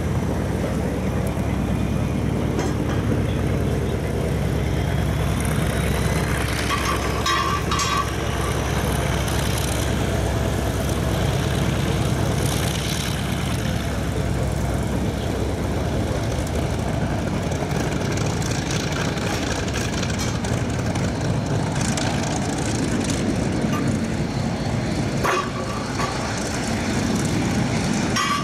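Aero L-39 Albatros jet trainer's Ivchenko AI-25TL turbofan at takeoff power, a steady jet noise as the aircraft takes off.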